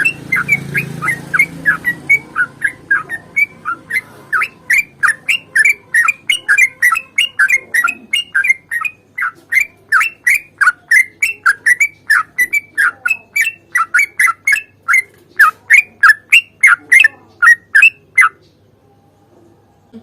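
Yellow-vented bulbul (trucukan) singing a long, fast run of short falling notes, about three a second, that stops abruptly near the end.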